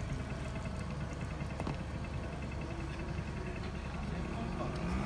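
An engine idling: a steady low rumble with even pulses.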